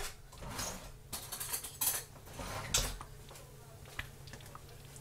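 Kitchen utensils and a container being handled: a series of short scrapes and clinks, loudest about two and three seconds in, with a single sharp tick near the end.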